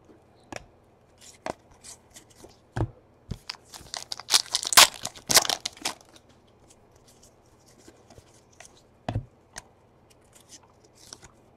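A foil trading-card pack wrapper, a 2017 Donruss baseball pack, being torn open and crinkled. It is densest about four to six seconds in, followed by scattered light clicks and rustles of the cards being handled.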